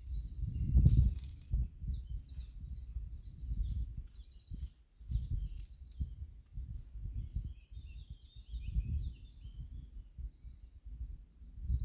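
Wind buffeting the microphone in uneven gusts, with songbirds singing short, high, rapid trills several times over it.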